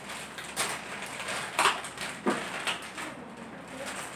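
Plastic ramen sauce sachet being crinkled and torn open by hand: a few short, sharp rustles, the loudest about a second and a half in.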